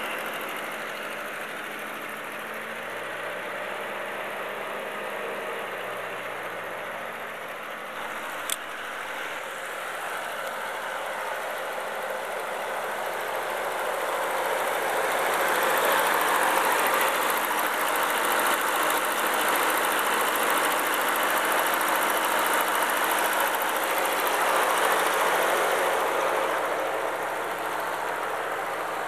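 Ferguson TEA20 tractor's four-cylinder petrol engine idling steadily as it warms up after a cold start. It gets louder from about halfway on, with a single sharp click about eight seconds in.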